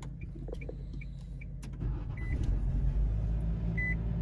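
2021 Nissan Sentra's 2.0-litre four-cylinder engine running after being started with a newly programmed key: a steady low rumble that grows louder about halfway through. Two short high beeps sound over it.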